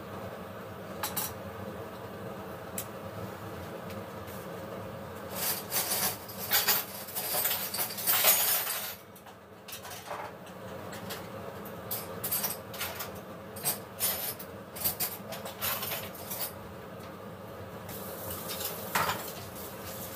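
Dishes and metal utensils clinking and clattering in irregular knocks, busiest and loudest in a stretch about a quarter of the way through to the middle, over a steady low hum.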